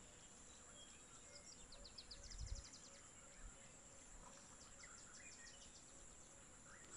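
Near silence: faint outdoor background with a steady high-pitched hum and two short runs of rapid, faint chirping ticks, typical of insects or small birds. There is one soft low thump about two and a half seconds in.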